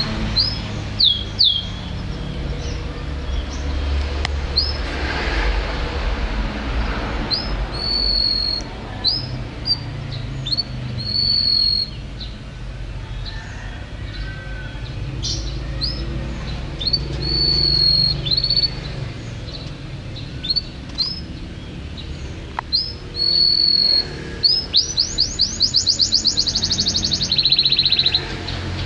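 Domestic canary singing: a run of short chirps and held whistled notes, then near the end a fast trill of rapidly repeated notes followed by a buzzy held note, over a steady low background rumble.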